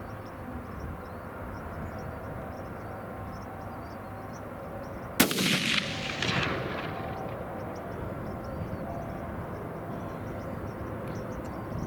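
A single hunting rifle shot at a whitetail deer about five seconds in, its report echoing and rolling away over the next couple of seconds. The shot hit the deer.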